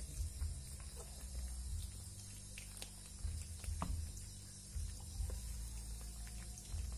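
Cats eating from a plastic plate: irregular small clicks and smacks of chewing and of teeth and noses against the plate, with a short squeak a little past the middle.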